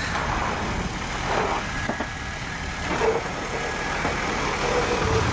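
Hummer H1 running as the truck crawls slowly past close by over loose dirt, a steady engine rumble.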